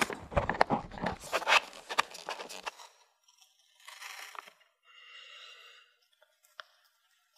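A plastic scraper pressing and scraping sticky sesame-and-nut nougat flat in a metal tray, with dense crackly scraping. About three seconds in it gives way to a knife slicing through the set nougat block on a wooden board: two quieter cuts and a small tap.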